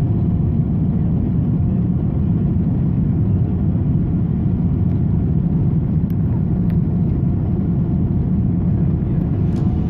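Steady, loud roar inside a jet airliner's cabin as it climbs out after takeoff, mostly deep engine and airflow noise. Music comes in near the end.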